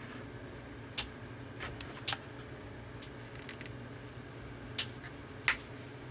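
Retail packaging being opened by hand: a handful of short, sharp clicks and crinkles, the loudest near the end, over a steady low hum.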